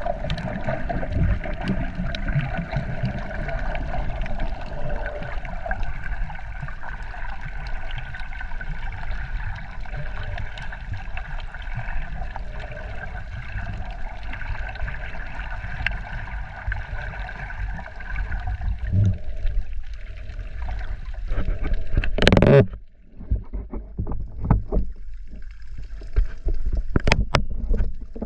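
Steady water noise with a motor hum underneath, as of a boat running. A loud rush comes about 22 seconds in, followed by a sudden brief drop, then scattered short knocks.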